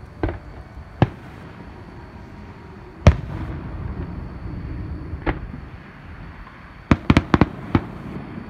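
Fireworks display: scattered aerial shell bursts, the loudest bang about three seconds in followed by a low rumble. A quick string of about six bangs comes near the end.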